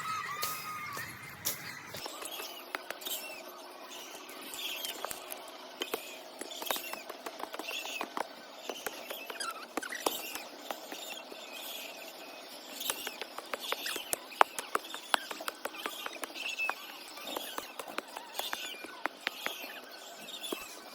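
Young poultry chicks peeping over and over in short, high chirps, with scattered sharp clicks and scratches.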